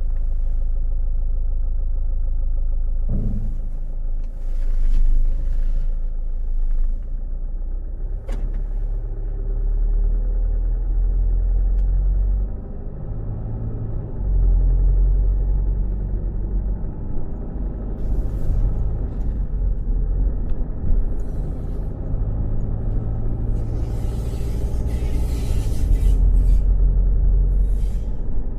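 A car driving, with a steady low rumble of engine and road noise that swells and eases as it moves. Brief hissing passes come and go a few times, and there is a single sharp click about eight seconds in.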